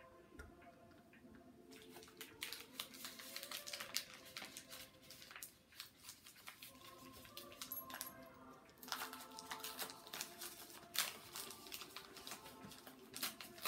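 Wrapping paper crinkling and tearing in irregular bursts from about two seconds in, with faint background music.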